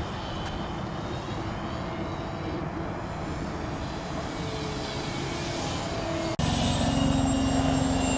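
Radio-controlled model airplane in flight, its motor and propeller running with a steady drone over noise. About six seconds in it cuts abruptly to a louder, closer passage with a stronger held tone.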